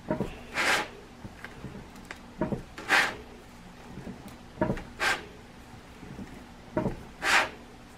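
Plastic spider-shaped bath bomb mold, packed with bath bomb mixture, being pushed and turned by hand: a light knock followed by a short scraping swish, four times about two seconds apart.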